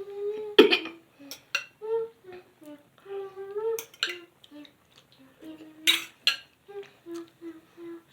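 A young girl humming and babbling in a high sing-song voice in short broken phrases, with a few sharp clinks of a utensil against a bowl, the loudest about half a second in.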